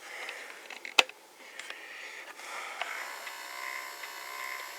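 A single sharp click about a second in, then from about three seconds a steady electric buzz like a small motor running.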